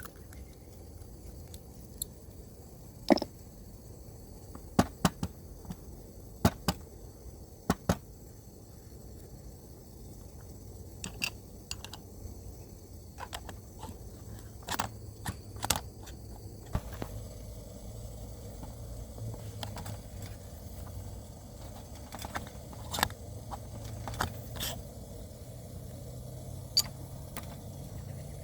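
Scattered sharp clicks and light knocks of coffee-making gear being handled, irregularly spaced, the loudest in the first eight seconds, over a steady low background.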